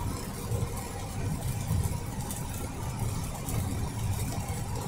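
Inside a vehicle cruising on a wet highway: a steady low rumble of engine and tyre noise with a light hiss above it.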